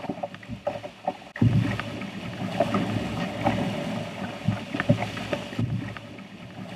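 Whitewater rushing around a canoe as it runs a small rapid, with occasional short knocks. The rushing gets suddenly louder about a second and a half in.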